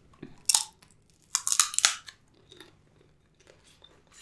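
Crab shell cracking and crunching as it is bitten and broken open while eating. There is one sharp crunch about half a second in, then a louder cluster of crunches around a second and a half in.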